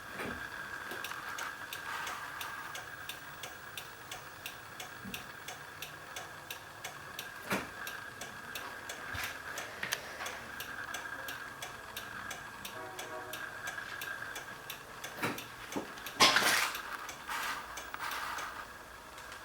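A car's turn-signal flasher ticking evenly, about two to three clicks a second, with a faint steady high tone under it. A brief louder rustle or knock comes about three-quarters of the way through.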